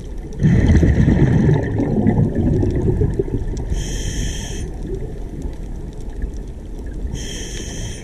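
Scuba regulator breathing underwater. A gush of exhaled bubbles near the start, then two short hissing inhales about three and a half seconds apart, the first followed by quieter bubbling.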